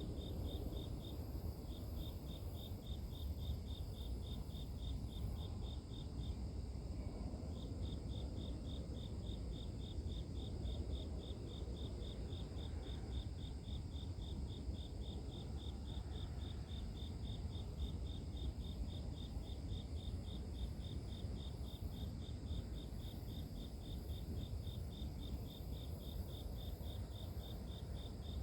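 Grass insects chirping: one high, thin note repeated in a fast, even pulse, breaking off briefly twice in the first several seconds, over a steady low background rumble.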